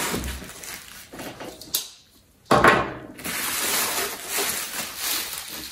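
Plastic bubble wrap rustling and crinkling as it is pulled out of a cardboard shipping box. There is a short hush about two seconds in, then a sudden louder burst of crinkling.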